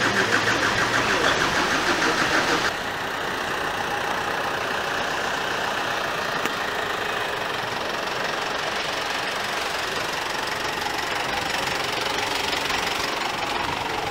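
A car's starter motor cranking its engine in a fast, even rhythm, the engine not yet running, cut off abruptly about three seconds in. After that a steady rushing noise.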